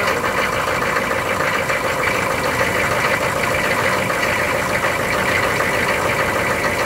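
Chevrolet 6.5-litre turbo diesel V8 idling steadily.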